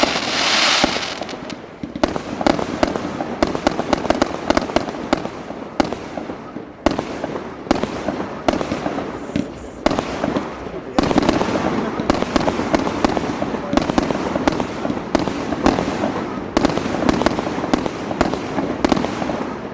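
Aerial fireworks going off in a dense, continuous barrage of bangs and crackling, several reports a second. Briefly thinner about two seconds in, then louder and busier from a little past the middle.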